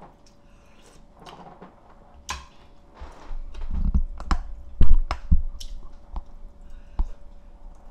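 Someone eating soup: a metal spoon clicking against a ceramic bowl, with chewing, and several dull knocks around the middle that are the loudest sounds.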